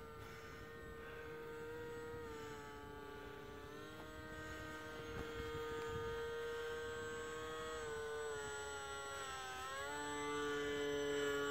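Radio-controlled model F6F Hellcat's electric motor and propeller whining in flight. The pitch drops as the throttle is eased a few times and rises again near the end, and the whine grows louder as the plane comes closer.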